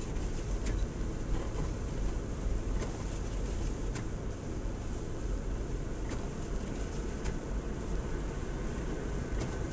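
Steady low rumble of a Ford Explorer's engine and tyres on a snow-covered road, heard from inside the cabin at low speed, with a few faint ticks.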